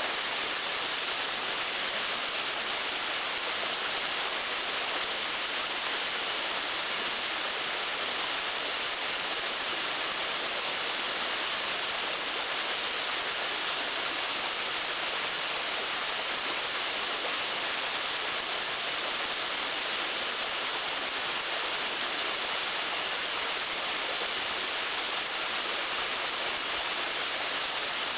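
Small waterfall, about 8 or 9 feet tall, running after rain: a steady, even rush of falling water.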